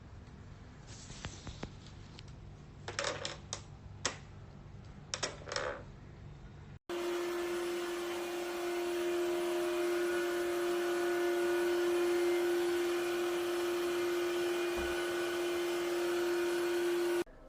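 A few light clicks and handling knocks, then the Tineco iFloor 2 cordless wet-dry floor washer switches on and runs steadily for about ten seconds: a strong even motor whine over a wide hiss. It then cuts off abruptly.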